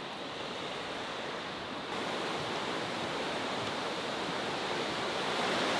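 Steady rushing hiss of running water, a little louder from about two seconds in.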